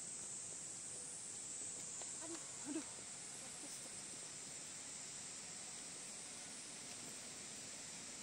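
Steady high-pitched chorus of insects, an even shrill hiss, with a brief faint lower sound a little under three seconds in.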